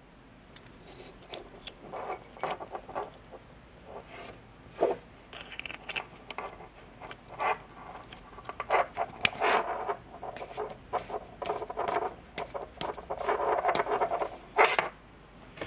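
Small plastic and metal parts of a Dellorto carburettor's electric automatic choke handled and fitted together by hand: irregular clicks, taps and scrapes, busier and louder in the second half.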